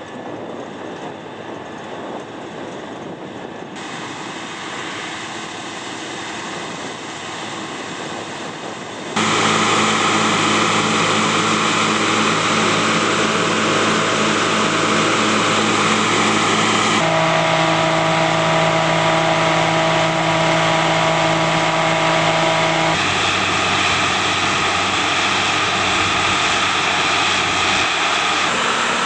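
Combine harvesters running while their unloading augers pour grain into a grain cart: a steady machinery hum. It changes abruptly at several points, quieter for the first nine seconds and louder after that.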